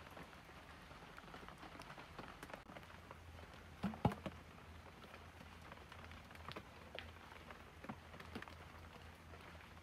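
Faint handling sounds of a bamboo tube and filter materials: scattered light taps and clicks, with one louder knock about four seconds in.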